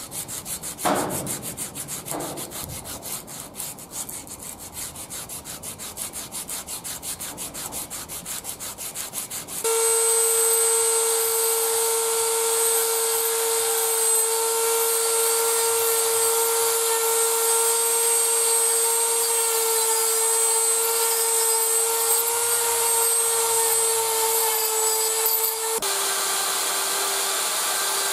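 Abrasive cloth strip pulled back and forth around a steel ferrule held in a vise, a quick rhythmic rasping. About a third of the way in it gives way to a handheld rotary tool running at a steady high whine as it spins the ferrule. Near the end a bench polishing wheel takes over with a slightly lower steady whine.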